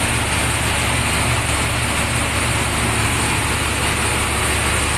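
Steady, loud engine-room machinery noise from a ship's running diesel generator: a low, even drone under a constant hiss, with no change.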